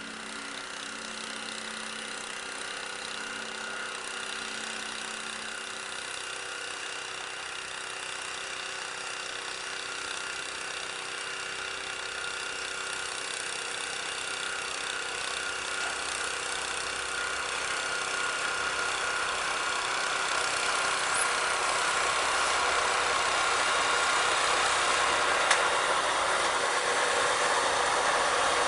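A snowblower's engine runs steadily while a diesel locomotive pushing a snowplough wagon approaches, its engine growing steadily louder. There is one sharp click near the end.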